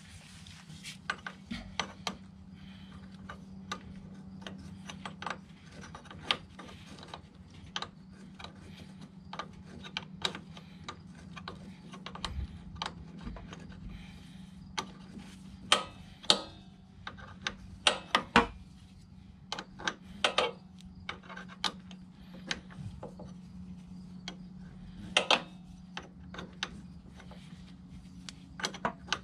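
Wrenches clicking and tapping on the clutch cable adjuster and jam nut of a Harley-Davidson as the adjuster is loosened by hand, in irregular small metal knocks, a few of them louder. A steady low hum runs underneath.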